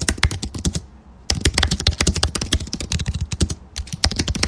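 Rapid typing on a computer keyboard: quick, irregular key clicks with a short pause about a second in.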